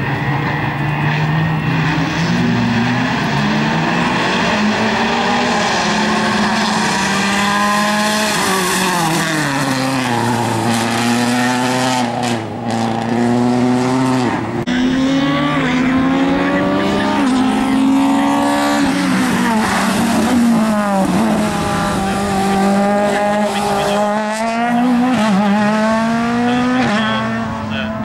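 Rally car engines driven hard on a wet circuit, a Subaru Impreza rally car among them, revving up and dropping back again and again through gear changes and lifts for the corners.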